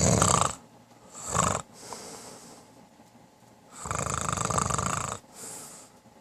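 A man snoring loudly in his sleep, in separate breaths: one snore dies away about half a second in, a short one follows about a second and a half in, and a long snore comes about four to five seconds in.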